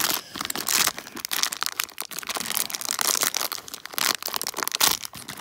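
Crinkly foil blind-bag wrapper crackling and crinkling in a dense, irregular run as it is worked open by hand.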